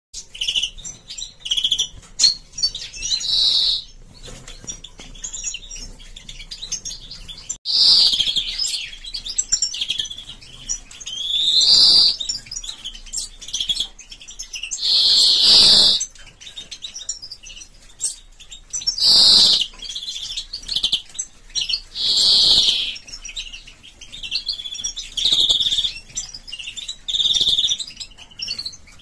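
European greenfinches chirping: quick short chirps at first, then louder bursts of about a second each, every three or four seconds.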